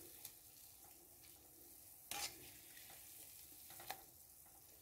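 Gulab jamuns deep-frying in oil: a faint, steady sizzle. A metal mesh skimmer makes a few light clicks against the pan, with a brief scrape about two seconds in.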